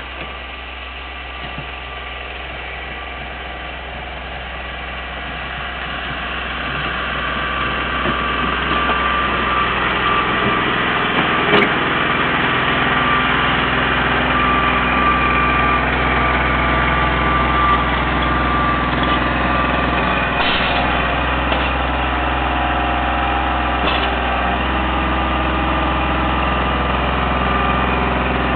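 Kubota L3800 compact tractor's three-cylinder diesel engine running, growing louder over the first several seconds as it comes near and then holding steady, with a few sharp knocks along the way.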